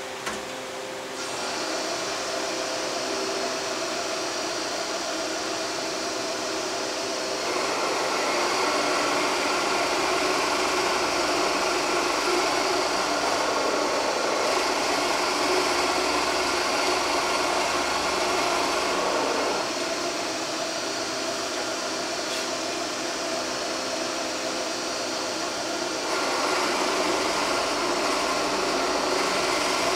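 Clausing drill press running with a venturi dust-collection hiss, a steady mechanical noise that starts about a second in. It grows louder for two long stretches while the 20 mm brad-point bit bores dog holes in the wood.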